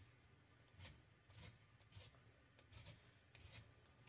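Faint scraping of a hand vegetable peeler stripping the skin off a raw sweet potato: about five short strokes, irregularly spaced.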